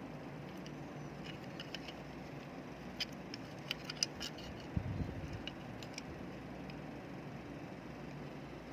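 Small sharp clicks and taps of handling the small plastic and metal parts of an opened rechargeable flashlight, clustered in the middle, with a soft low thump about five seconds in, over a steady background hiss.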